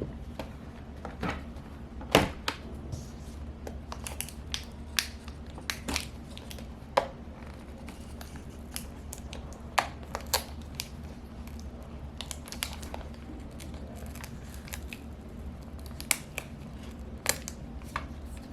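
Irregular small clicks and crinkles as the adhesive tape over a laptop's display cable connector is peeled back and handled, over a steady low hum.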